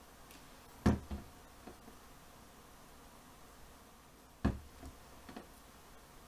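Two soft knocks on a table top about three and a half seconds apart, each followed by a smaller tap or two, as cut card pieces and tools are put down and handled.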